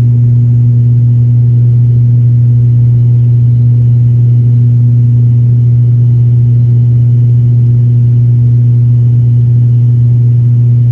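ATR 72 turboprop engines and propellers heard from inside the passenger cabin in flight: a loud, steady, low propeller drone that does not change.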